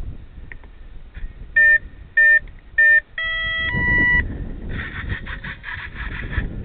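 Startup beeps of the FX-61 flying wing's ESC sounded through its motor as it powers up: three short beeps, then two longer tones, the last one higher. From about five seconds in, a rapid, uneven chattering follows.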